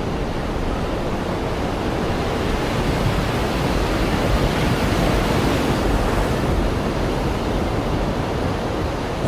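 Storm wind blowing hard against the microphone: a steady rushing noise, heaviest in the low end, swelling a little in the middle.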